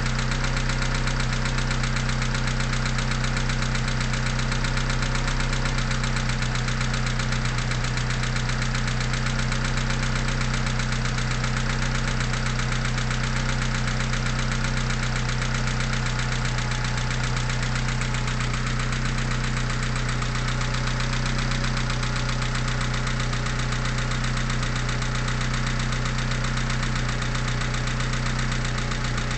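Mitsubishi 4G63T turbocharged inline-four idling with a fast, even knocking. This is a cold-engine knock that the owner says fades once the engine is warm, and which he suspects is lifter noise or piston slap.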